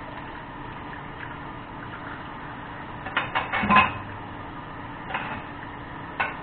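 Cookware and metal utensils clattering: a quick run of sharp knocks about halfway through, the loudest at the end of the run, then a single knock and another near the end, over a steady background hiss.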